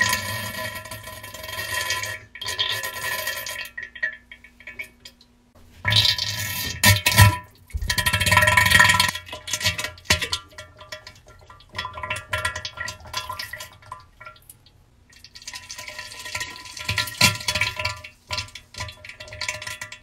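Diarrhea sound effects: wet, spluttering splatters and gushes of a bowel movement in irregular bursts with short pauses, the loudest about six to nine seconds in.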